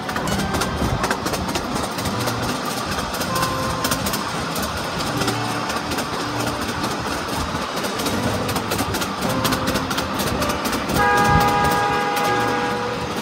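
Ride-on miniature park train running along its track: a steady rumble with rapid wheel clicks. About eleven seconds in, a steady horn sounds for about two seconds.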